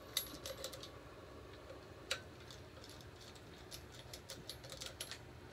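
Light metallic clicks and ticks as the bolts of a flywheel puller are unscrewed by hand from an outboard's flywheel, coming in scattered runs with one sharper click about two seconds in.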